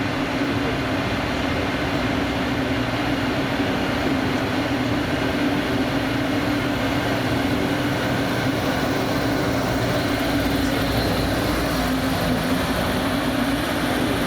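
Diesel engine of a four-wheel-drive rough-terrain forklift running at a steady speed, a constant loud drone with no revving.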